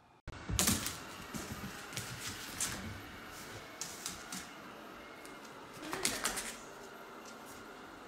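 Two dogs playing and scuffling, with an irregular run of clicks, knocks and scrabbling. The sound cuts in abruptly just after the start and is loudest about half a second in and again around six seconds.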